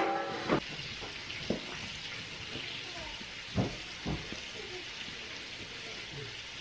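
A wooden spoon scraping thick batter out of a steel mixing bowl into a metal baking pan, with a few short knocks of spoon on bowl, over a steady hiss. It opens on the fading ring of the metal pan just set down on the table.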